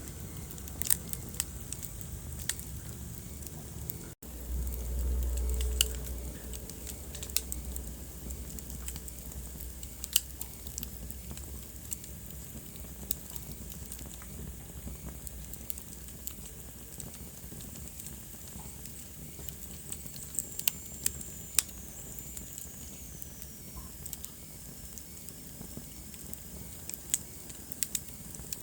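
Wood fire crackling in a fireplace: scattered sharp pops and snaps over a steady low hiss. The sound cuts out for an instant about four seconds in, and a low rumble follows for a couple of seconds; later a faint high whistle glides downward.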